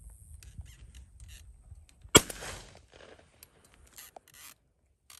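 A single shotgun shot about two seconds in, fired at doves, with a short echo trailing after it.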